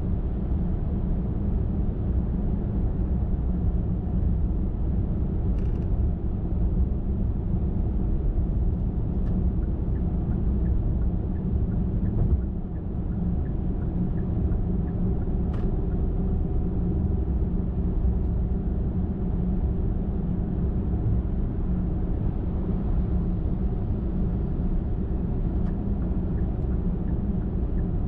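Car driving at highway speed: a steady low rumble of engine and tyre noise, with a couple of faint ticks.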